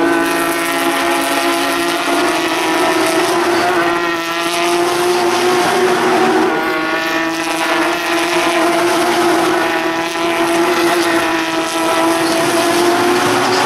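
Porsche 911 GT3 Cup race cars' naturally aspirated flat-six engines running at high revs as the pack goes by. A steady high engine note with overlapping rising and falling sweeps as cars pass and shift.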